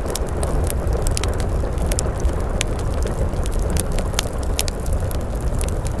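Log fire burning in a fireplace: irregular sharp crackles and pops, a few each second, over a steady low rumble of the flames.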